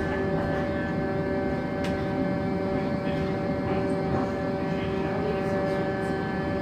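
Interior of a Bombardier Flexity 2 tram running along street track: a steady electric whine from the drive over a continuous rumble of the wheels on the rails. There is a single sharp click about two seconds in.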